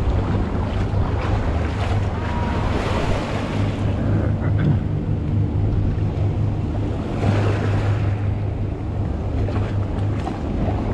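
Small waves washing and lapping over sand and rocks at the water's edge, with wind rumbling steadily on the microphone.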